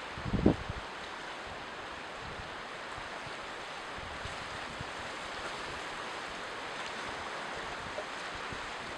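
Ocean surf washing steadily. About half a second in there is a brief low thump, the loudest moment.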